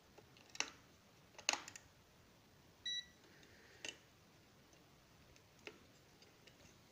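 Light plastic clicks as AA batteries are pushed into a handheld digital multimeter's battery compartment and its plastic cover is snapped back on, with one short electronic beep about three seconds in.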